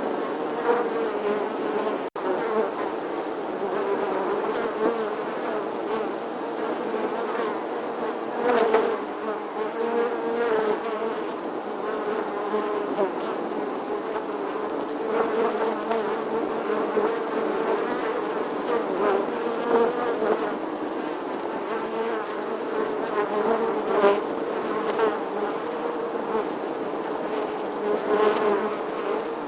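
A bee buzzing continuously, its pitch wavering, with brief louder swells several times.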